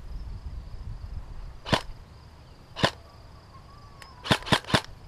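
Five single shots from an airsoft rifle: two about a second apart, then three in quick succession near the end.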